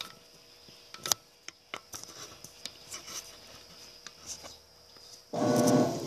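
Scattered light clicks and taps from hands working on a washing machine's wiring and control-board housing. The sharpest click comes about a second in. A loud rubbing handling noise starts shortly before the end, over a steady faint high hiss.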